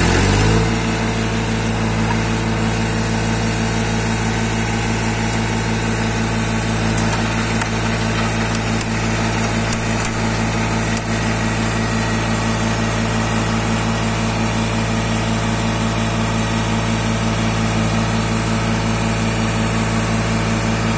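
Tractor diesel engine running steadily at an even speed, driving a rear-mounted rotary brush cutter through the power take-off.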